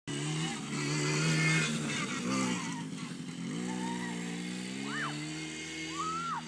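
Motor of a child's ride-on vehicle running steadily, its pitch rising about three and a half seconds in. Two short high squeaks that rise and fall come near the end.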